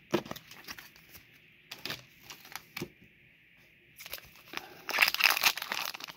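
A few light taps and clicks of trading cards being handled, then the foil wrapper of a Pokémon Scarlet & Violet booster pack crinkling loudly as it is picked up and worked in the hands, near the end.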